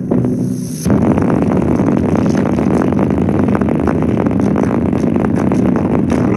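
Bass-boosted music played through an opened-up JBL Flip portable speaker with its woofer cones bare, heavy in the low end. After a short thinner break with a hiss, the heavy beat comes back in just under a second in.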